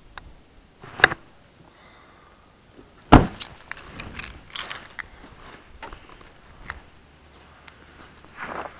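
A car door slammed shut about three seconds in, the loudest sound, with a lighter click before it and a string of small clicks and rattles after it as keys and gear are handled.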